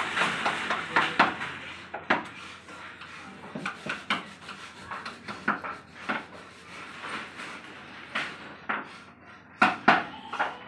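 Woodworking in a furniture workshop: irregular sharp knocks and taps on wood, with a stretch of scraping near the start.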